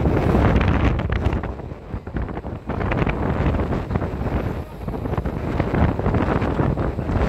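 Wind buffeting the microphone at the open window of a moving car, over the car's road noise. The rush rises and falls unevenly.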